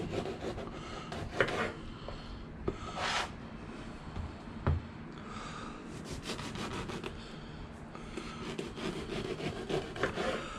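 Kitchen handling noises during food preparation: irregular rubbing and scraping with a few sharp knocks, the loudest about four and a half seconds in.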